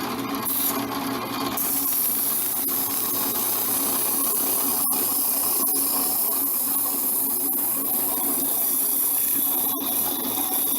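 Drill press running steadily on its quiet replacement motor, with a continuous hiss of emery cloth rubbing against the handle spinning in its chuck.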